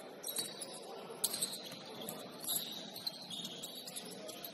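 Basketball shoes squeaking on a gym floor: several short, high squeaks about a second apart over the steady hum of a gym.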